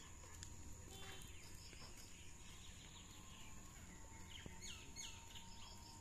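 Faint outdoor ambience: birds chirping here and there, with a quick run of falling chirps near the end, over a steady high insect drone.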